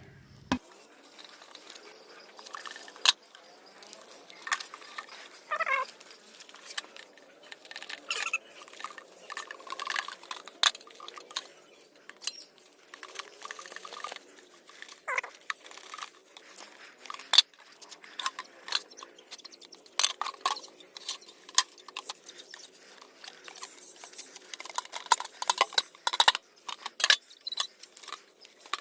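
A knife and hands working inside a large fish head to cut out and pull away the gills: irregular scraping, cutting and wet crunching clicks, with a few sharper knocks.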